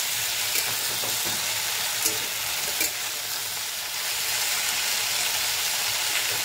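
Potato and pointed gourd (parwal) strips sizzling in oil in a steel kadhai, stirred with a metal spatula that clicks against the pan a few times.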